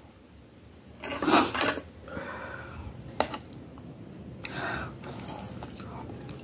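Metal fork scraping on a glass plate as a piece of breaded chicken is speared and lifted: a loud scrape about a second in, a single sharp clink of the fork against the glass about three seconds in, then a softer scrape.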